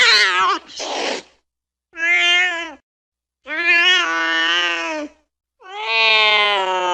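Domestic cat meowing: a series of separate meows with short silences between them, the later ones long and drawn out, edging toward a caterwaul.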